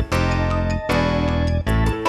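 Background music: upbeat instrumental with held chords over a bass line, a brief break just after a second in.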